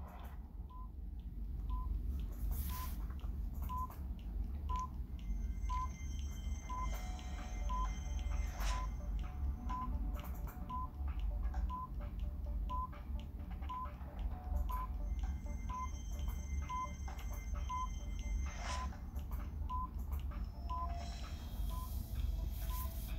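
Countdown timer beeping once a second, each beep a short high pip, over a steady low hum.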